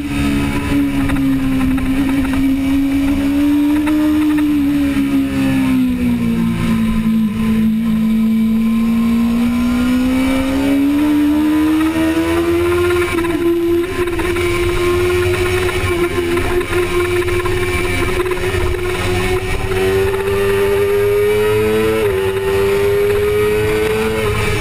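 A 2005 Suzuki GSX-R600's 600 cc inline-four engine at high revs under racing, heard from a camera on the bike with wind rush over it. The engine note sags for several seconds through a corner, then climbs steadily as the bike drives out, with a brief drop near the end before it rises again.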